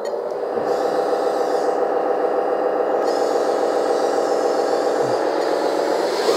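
1/14 RC wheeled hydraulic excavator driving in reverse under radio control, its drive giving a steady whirring, rasping mechanical sound that holds level for several seconds.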